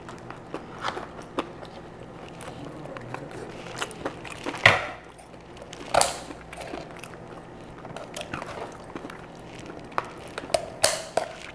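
Kitchen scissors cutting through the hard shell of a boiled giant lobster claw, with crunching snaps and clicks as the shell cracks. The loudest snaps come about halfway through and again near the end.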